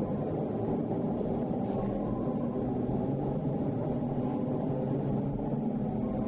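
Steady low rumbling drone with a few faint held tones, unchanging throughout.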